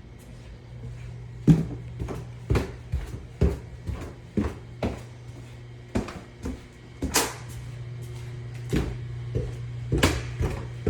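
Footsteps knocking on a hard floor, a dozen or so irregular steps, over a steady low hum.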